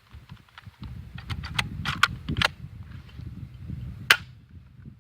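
Crosman PSM45 BB pistol being worked by hand while unloaded: a quick run of metallic clicks about a second in, then one sharp snap near the end, likely a dry fire. The gun is being checked for a malfunction.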